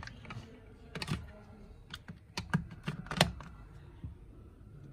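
Irregular plastic clicks and knocks as a Xiaomi Mi Wi-Fi Range Extender Pro and the plugs around it are handled and pushed into a power-strip socket. The loudest knock comes about three seconds in.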